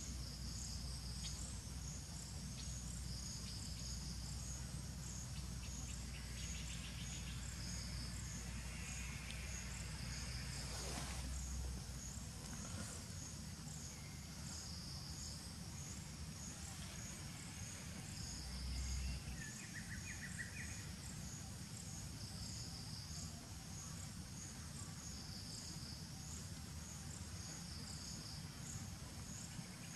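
Insects chirping in a steady, high, pulsing chorus, with a low hum underneath that stops about twelve seconds in.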